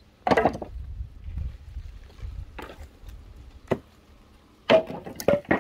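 Wooden knocks and thuds as logs and planks are struck and handled for firewood: one loud knock with a short ring near the start, a few scattered knocks, then several in quick succession near the end, over a low rumble in the first half.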